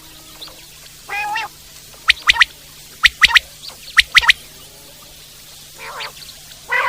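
Common quail (Coturnix coturnix) giving its three-note 'wet-my-lips' call: three quick, sharp notes repeated three times about a second apart. Lower, nasal notes come about a second in and again near the end.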